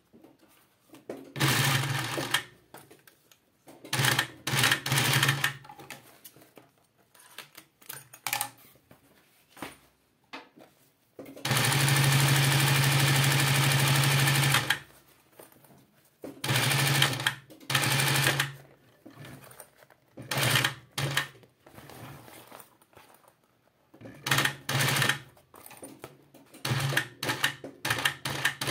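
Industrial two-needle post-bed sewing machine stitching a zipper into a boot upper, running in short bursts of a second or two with pauses between, and one longer steady run of about three seconds near the middle.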